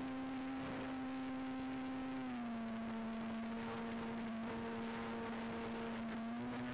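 Electric motor and propeller of a ParkZone Trojan T-28D RC plane in flight, heard through the plane's own onboard camera: a steady hum over a background hiss. The hum drops slightly in pitch about two seconds in and rises back near the end.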